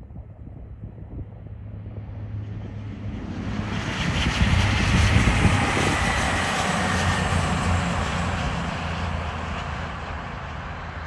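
CrossCountry Voyager diesel multiple unit passing at speed: a steady drone from its underfloor diesel engines under a rush of wheel and air noise. The sound swells as the train approaches, is loudest about five seconds in, then slowly fades as it runs away.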